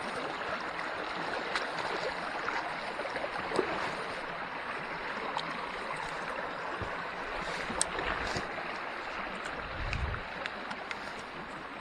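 Small creek's water running steadily over its bed, an even rushing hiss with a few faint ticks.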